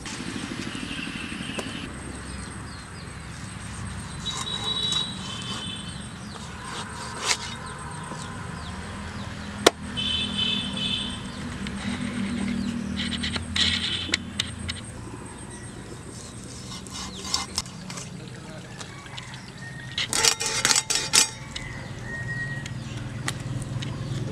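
Knife cutting a large fish into steaks on a metal tray: scattered sharp knocks of the blade, one very sharp strike about ten seconds in and a quick flurry near the end. A steady low hum and short high chirps run underneath.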